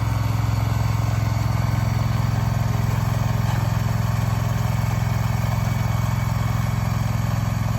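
Engine of a remote-controlled tracked shed mover running steadily under load as it moves a barn across a soggy yard: an even, unbroken hum.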